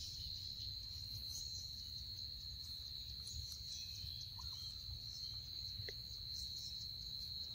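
Insects droning in one steady, unbroken high-pitched tone, over a low rumble.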